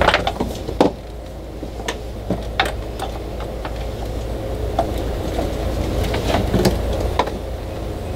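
Hands working heavy battery cables and wiring into an outboard motor's lower cowling: scattered light clicks and knocks as cables and parts are handled, the loudest right at the start and about a second in, over a steady low hum.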